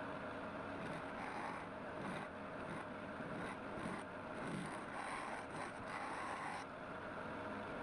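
Wood lathe running, with a turning tool cutting into the spinning wood off and on; the cutting noise stops sharply near the end, leaving the machine's steady hum.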